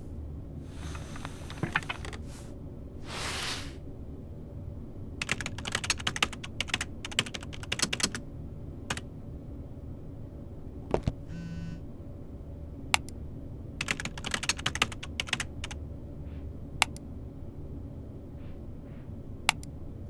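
Computer keyboard typing in quick flurries, with single mouse-like clicks between them, over a steady low room hum. Two short rustles come in the first few seconds, and a brief electronic tone sounds about halfway through.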